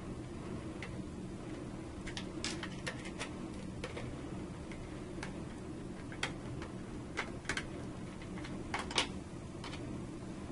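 Scattered light clicks and taps of small metal parts being handled as fingers work the secondary mounting bracket and its screws on a power circuit breaker, the sharpest clicks bunched in the second half, over a steady low hum.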